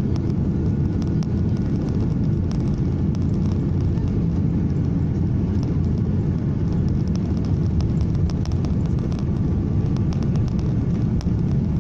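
Airliner cabin noise heard from a passenger seat: a steady deep rumble of the jet engines and airflow, with faint light rattles.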